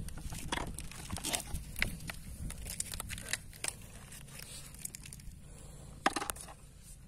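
Irregular crunches and clicks of shell-crusted rock and gravel being stepped on and handled, with one louder crack about six seconds in.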